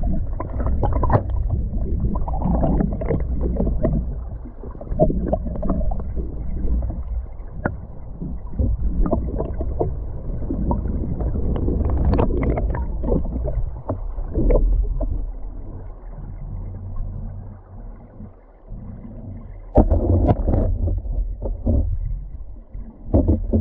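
Flowing river water heard through an underwater camera's waterproof housing: a muffled low rushing full of irregular clicks and knocks. It eases off a little past the middle and swells again near the end.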